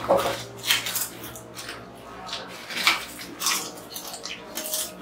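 Potato chips crunching and crackling as two people eat them straight from bowls with their mouths, in many quick, irregular crunches, with chips rustling against the bowls.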